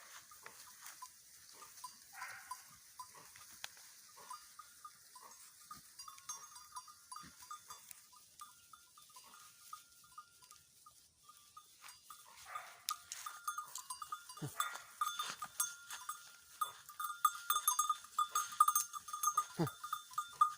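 Goats browsing in scrub: faint rustling and crackling of twigs with a few short goat bleats. From about twelve seconds in, a steady high ringing joins and grows louder.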